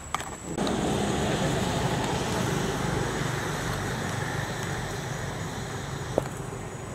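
Steady rumbling outdoor background noise, like distant road traffic, that comes in abruptly about half a second in. A single sharp click sounds near the end.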